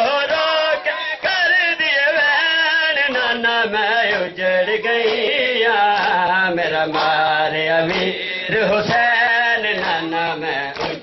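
Male voices chanting a Punjabi noha, a Shia mourning lament, in a drawn-out sung melody, with scattered strikes of chest-beating matam from the crowd.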